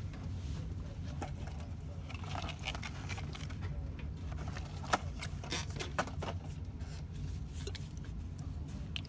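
Scattered small clicks and scrapes of containers and utensils being handled while making slime, with two sharper clicks about five and six seconds in, over a steady low hum.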